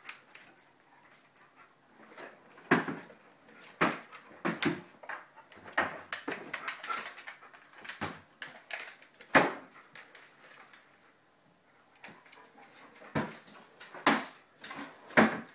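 Wooden kitchen drawers and cabinet doors being pushed shut by a dog's nose: a series of about ten sharp knocks and bumps, a few of them in quick pairs.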